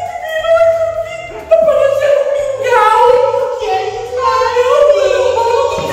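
Singing over background music with a steady beat.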